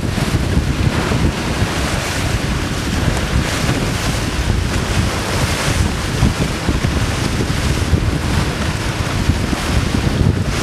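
Heavy wind buffeting the microphone over the rush of waves and water along the hulls of a catamaran under way in choppy sea. Steady throughout, with small gusts.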